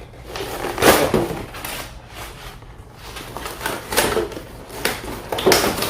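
Action figure packaging being opened by hand: a cardboard box and its plastic tray sliding, rustling and scraping, with about four short knocks and scrapes.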